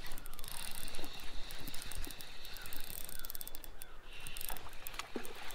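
Fishing reel clicking and whirring in rapid runs while a hooked smallmouth bass is fought and reeled in.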